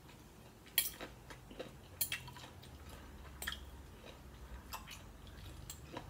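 A person chewing a mouthful of rice with shrimp and squid, with a handful of faint sharp clicks of a spoon and fork against a glass plate.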